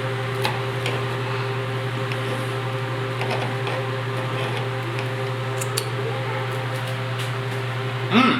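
Microwave oven running on high: a steady low hum with fan noise and a few faint clicks, heating an egg in cold water.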